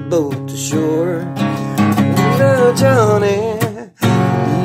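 Strummed acoustic guitar with a wordless vocal melody gliding over it. The music drops out abruptly for a split second near the end, then carries on.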